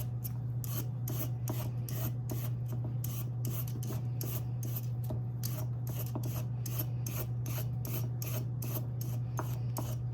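A carrot being shaved into long strips with a vegetable peeler: quick repeated rasping strokes, about three or four a second, over a steady low hum.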